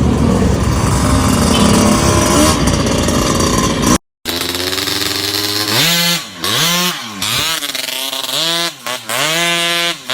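Honda Dio two-stroke scooter engine with a new aftermarket expansion pipe, revved in a series of throttle blips, its pitch climbing and dropping again about six times. Before it, a loud, even rush of noise cuts off about four seconds in.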